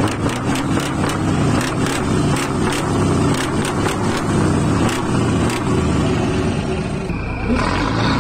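Heavy truck's diesel engine revved hard at full throttle, with sharp crackles over a loud rumble from the exhaust. About seven and a half seconds in it changes abruptly to another truck's engine.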